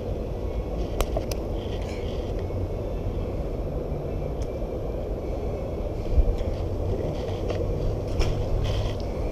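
Steady low rumble of city background noise, with a few short clicks and knocks and one dull thump about six seconds in.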